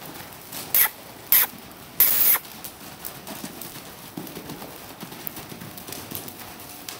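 Quarter horse foals' hooves thudding softly on the dirt footing of an indoor arena as they trot and lope loose. Three short, loud hissing bursts come in the first two and a half seconds, the third the longest.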